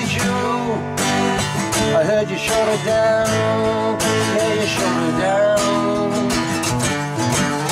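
Two acoustic guitars played together: steady strummed chords under a melody line that bends and wavers in pitch through the middle.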